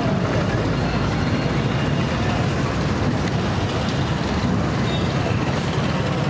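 Steady street traffic noise: a continuous low hum of motor vehicles with no single event standing out.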